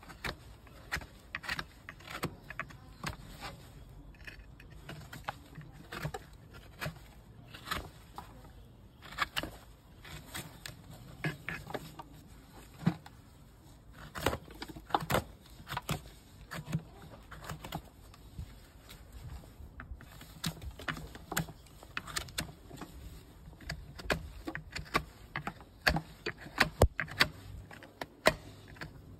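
Hoof knife paring and scraping the sole of a Shire horse's hoof: many short, irregular scraping strokes and clicks.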